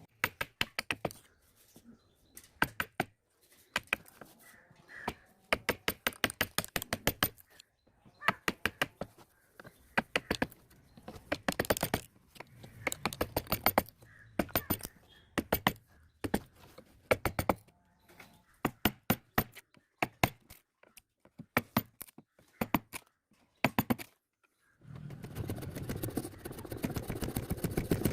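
A wood chisel being struck in quick runs of sharp taps, chopping waste from a joint down to the marked line. In the last few seconds this gives way to a steady scraping.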